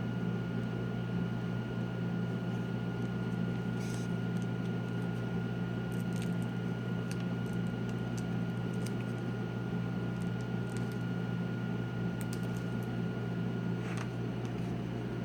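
Steady low electrical hum with a thin high whine, over which come a few faint clicks and taps of the laptop's replacement screen and its LCD connector being handled.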